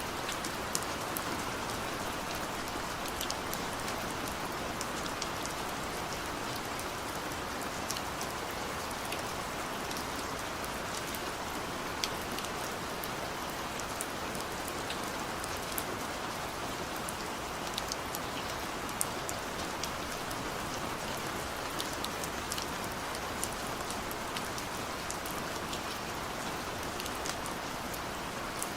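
Steady rain falling, an even hiss with many distinct sharp drop ticks on a hard surface throughout.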